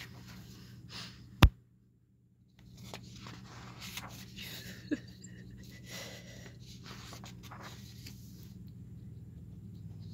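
A person voicing cartoon characters sick with colds: quiet sniffles and wheezy, sneezy breaths over a steady low hum. A sharp click about a second and a half in, then a second of dead silence.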